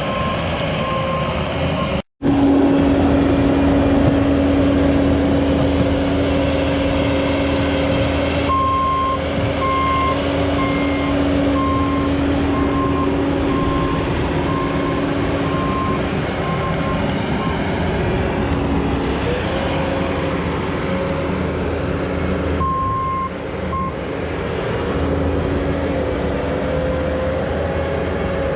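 Heavy vehicle engine running steadily, with a backup alarm beeping at a regular pace for several seconds while it reverses, and again briefly later. The sound cuts out for an instant about two seconds in.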